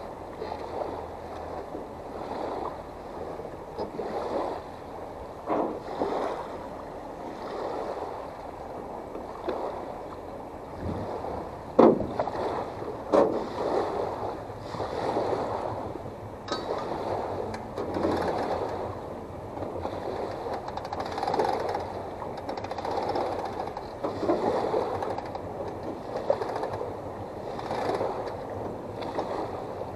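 Small waves lapping and sloshing against the hull of a beached small fishing boat, in irregular swells every second or two. A couple of sharp knocks about twelve and thirteen seconds in.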